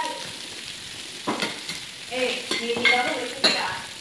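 Food sizzling on a tabletop grill pan, with chopsticks clicking and scraping against the pan and food several times in the second half.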